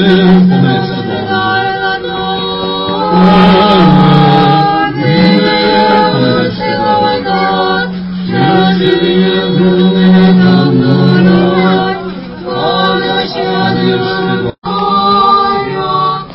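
Small church choir singing Orthodox liturgical chant a cappella, with a low note held steadily underneath the melody. The sound cuts out for an instant near the end.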